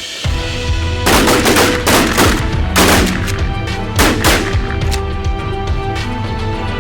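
A rapid volley of shotgun blasts, roughly eight shots in quick clusters, as several hunters fire together at incoming geese. Background music with a steady bass plays underneath.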